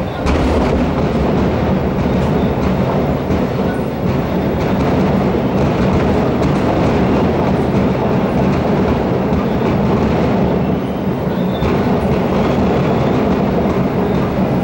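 Fireworks going off in a dense, continuous crackle and rumble, loud throughout with no clear single bangs.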